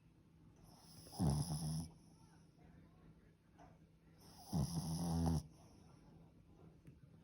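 Boston terrier snoring: two loud snores about three seconds apart, each sliding down in pitch at the start and then holding a low, steady buzz.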